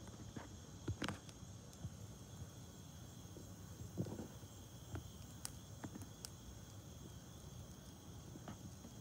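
Wood fire in a fire pit crackling faintly, with scattered sharp pops a second or more apart, the loudest about a second in and at about four seconds, over a steady high chirring of crickets.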